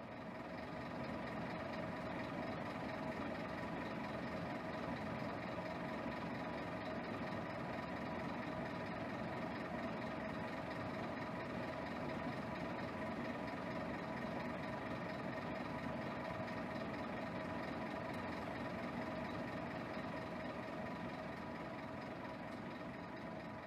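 Scania K270 city bus's diesel engine idling with a steady, unchanging hum.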